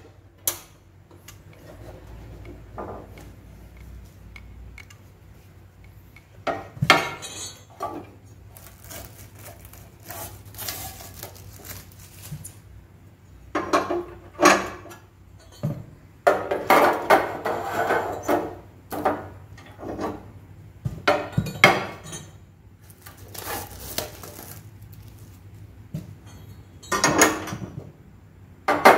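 Parts of a new stove being handled and unpacked: irregular clinks and knocks of metal parts, with stretches of rustling and scraping.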